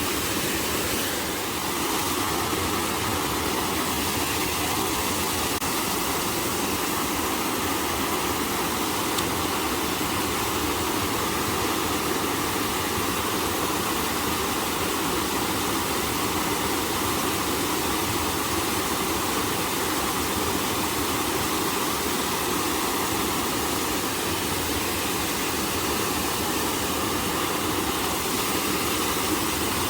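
Shallow stream water rushing steadily over rocks, a constant even rush that does not change.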